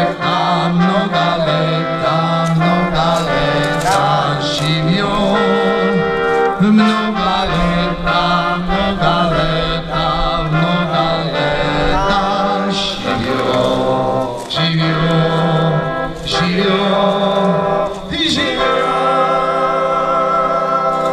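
Music playing: a song with singing over instruments and a steady beat.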